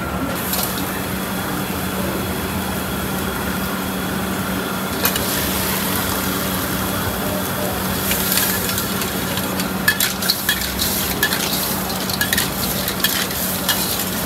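Clams stir-frying in a carbon-steel wok over a gas burner: a steady sizzle that grows louder about five seconds in, over a low hum. From about ten seconds in, the metal spatula clanks and scrapes against the wok in quick strokes.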